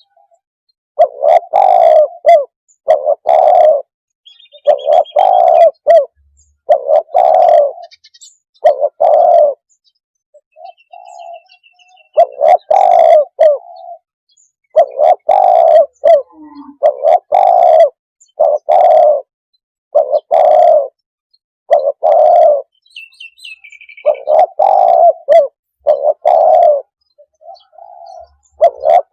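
Spotted dove cooing: a long series of deep coo notes in runs of two to four, with short pauses between the runs.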